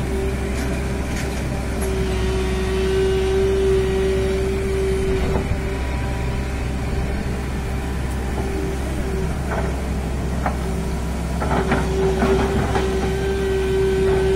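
SANY hydraulic excavator running steadily, its engine and hydraulics giving a constant whine over a low hum, with scattered knocks and clatter as it works through landslide debris, more of them in the second half.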